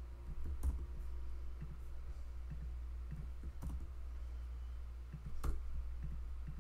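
Scattered computer mouse and keyboard clicks while editing on a computer: three sharper clicks, one under a second in, one near the middle and one about five and a half seconds in, with fainter ticks between, over a steady low hum.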